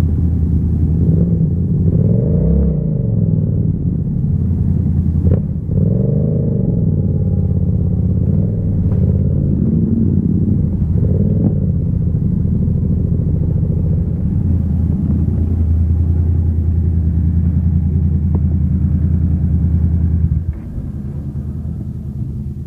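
Yamaha MT-07's parallel-twin engine at low speed, the throttle opened and closed a few times so the pitch rises and falls, then running steadily at low revs. A little before the end the sound drops noticeably in level.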